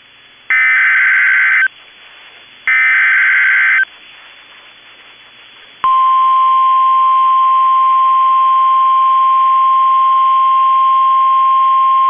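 NOAA Weather Radio Emergency Alert System signal: two bursts of SAME header data, a buzzy warbling screech about a second apart, then after a short gap the steady 1050 Hz warning alarm tone starts about six seconds in and holds. The sequence announces a new severe weather warning about to be read.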